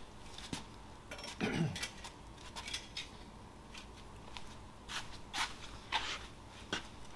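Irregular light metallic clinks and taps of hand tools and engine parts being handled at a workbench, about ten scattered knocks.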